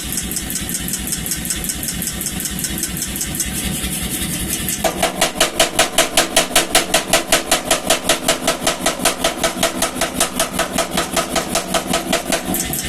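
Power hammer running, then about five seconds in it begins striking in a fast, even rhythm, about four blows a second, drawing out the steel for a poker. The blows stop just before the end, leaving the machine running.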